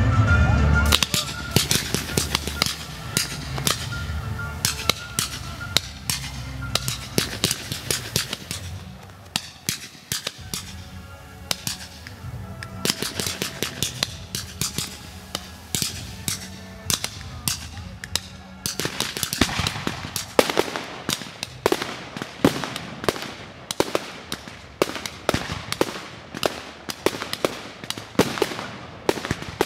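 Fireworks display going off: a dense, rapid string of sharp bangs and crackles from aerial shells, growing louder in the second half.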